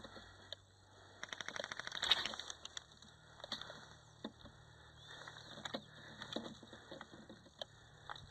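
Airsoft electric gun firing a short full-auto burst, a rapid even rattle of about seventeen shots a second lasting under a second, about a second in. Scattered single clicks and knocks follow.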